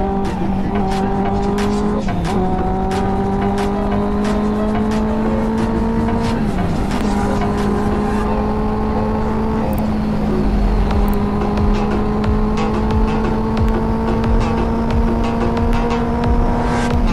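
Benelli 600i's inline-four engine accelerating hard at high speed, its pitch climbing steadily and dipping briefly at upshifts about two, six and a half and ten seconds in. Wind noise rushes underneath.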